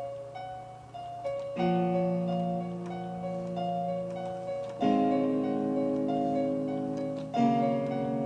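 Digital piano being played: a repeating figure of high notes over held low chords, with a new chord struck about every three seconds.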